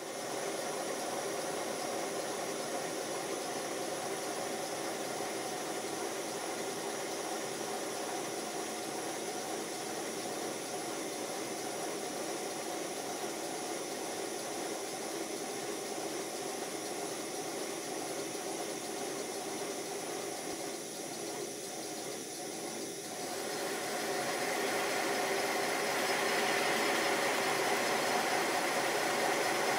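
A 5-inch gauge live steam model of a GWR 14XX tank locomotive, fired by a gas burner, running on stands with its wheels spinning free. The sound is steady and even. About 23 seconds in it gets louder as the engine runs faster.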